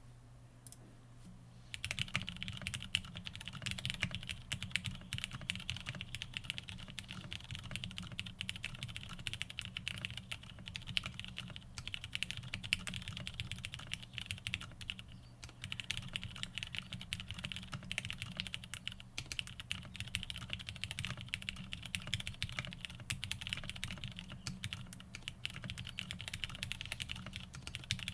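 Fast continuous typing on a custom Frog TKL mechanical keyboard with an FR4 half plate, lubed and filmed Cherry MX Black Hyperglide linear switches and PBT keycaps. It starts about two seconds in, with a brief lull about halfway through.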